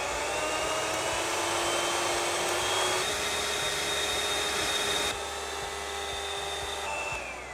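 Electric hand mixer (Softry) running at high speed, its beaters whipping egg whites to finish a meringue: a steady motor whine that winds down near the end as it is switched off.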